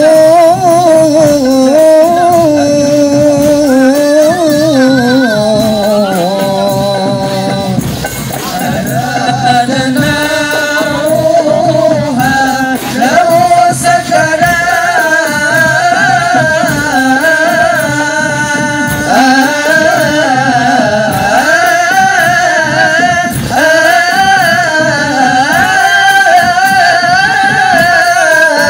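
Hadrah ensemble music: an Arabic sholawat melody sung without pause over a steady beat of hadrah frame drums.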